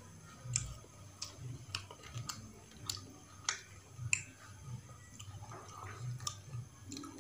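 Close-miked chewing with irregular, wet mouth smacks and clicks as a man eats rice and minced-meat curry with his fingers.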